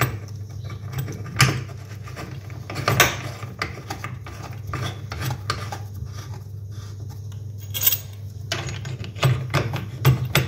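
Brass fittings handled and screwed by hand onto a bath tap's threaded brass tail, giving a few scattered light metallic clinks and clicks over a low steady hum.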